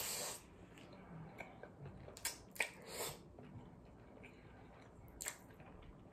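A mouthful of spicy cold noodles slurped in about a second in, then close-miked chewing with a few wet mouth clicks and smacks.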